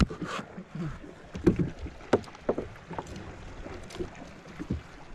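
Scattered knocks and clicks of fishing tackle and hands on a small boat, over a steady wash of water and wind.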